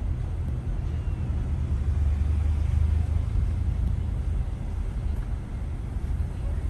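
Steady low rumble of a car driving along: road and engine noise, swelling a little in the middle.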